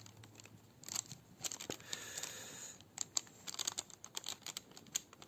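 Faint, irregular small clicks and scratches of tweezers working at the tiny parts of a mechanical watch movement.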